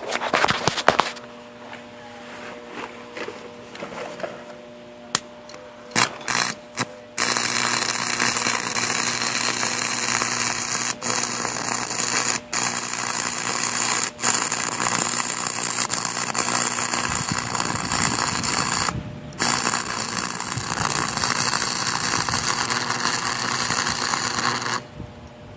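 Homemade welder built from two microwave-oven transformers striking an arc: a few short crackling strikes and sputters, then from about seven seconds in a sustained arc crackling and buzzing over the transformers' hum. It breaks off briefly a few times and stops near the end.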